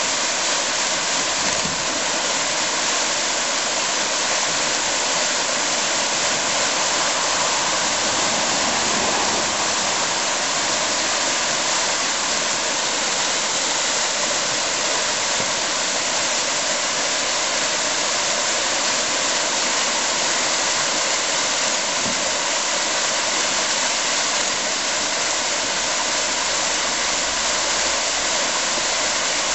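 Whitewater rapids on a small forest river rushing steadily: an unbroken hiss of churning water, with little low rumble.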